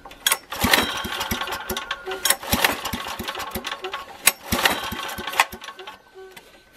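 Small generator engine turning over and firing unevenly, with irregular thumps several times a second and bursts of rattle. It is a sign of hard starting, from a replacement ignition coil of the wrong specification.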